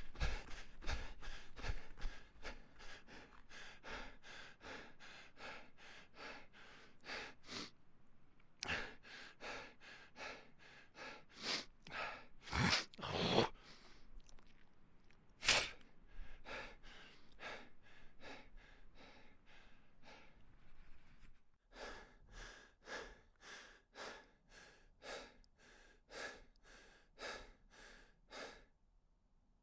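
A person breathing hard and fast, panting at about two to three breaths a second. In the middle come fewer, louder, deeper breaths before the quick panting starts again.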